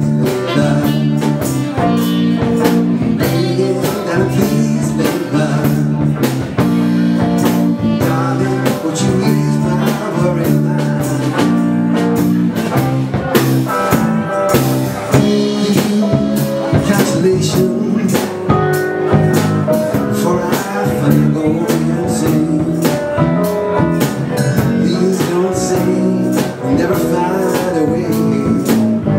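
Live dance band playing, with a steady drum beat under the instruments.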